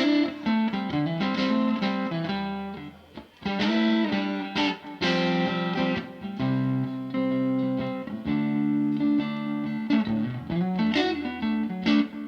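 Live band playing an instrumental passage led by plucked, picked guitar notes with bass underneath.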